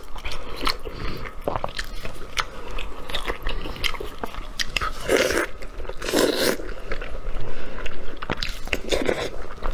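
Close-miked eating sounds: a person pulling meat off a braised sheep's head with gloved hands, biting and chewing it. A steady run of small clicks, with louder bursts about five and six seconds in and again near the end.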